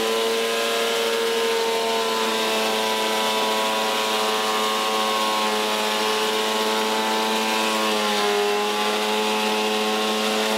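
Scheppach HMS1070 planer-thicknesser running with a steady, loud whine from its motor and two-knife cutterhead. About eight seconds in the pitch sags briefly as a pine beam is fed into the thicknesser and the knives take load.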